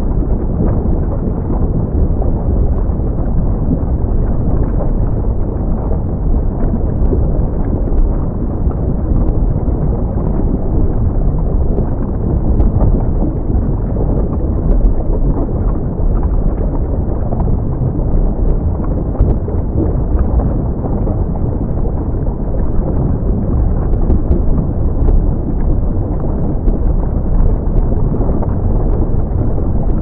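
Volcanic eruption sound effect: a steady, deep rumble of dense noise, strongest in the lowest bass, with scattered faint crackles over it.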